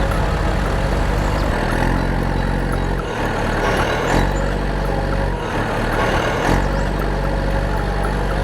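Engine running steadily under load, its low note shifting every second or so.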